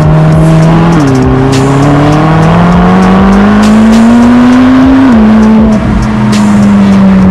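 McLaren 720S twin-turbo V8 with a QuickSilver ceramic sports exhaust, accelerating hard through the gears. The engine note drops with an upshift about a second in, climbs steadily for about four seconds, then drops with another upshift.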